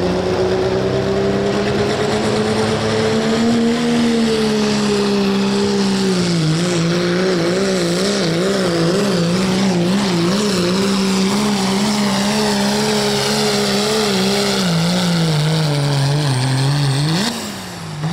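Diesel Dodge Ram pickup pulling a sled at full throttle. Its engine note climbs steadily, then wavers rapidly up and down, about twice a second, for most of the pull. Near the end there is a last brief rise, then a sudden drop as the throttle is released.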